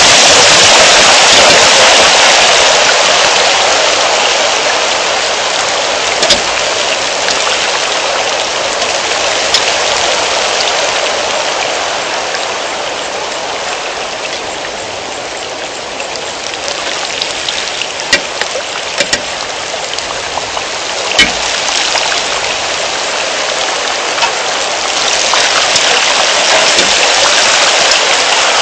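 Rain falling steadily, easing off somewhat in the middle and picking up again near the end, with a few sharp drop impacts standing out.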